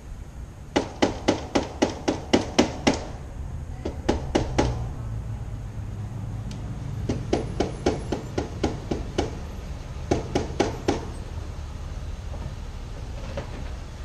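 Hammer tapping on the metal at the top of a Herculite glass door: runs of quick, ringing strikes about four to five a second. There is a run of about ten strikes, then a short run of three, then two longer runs later.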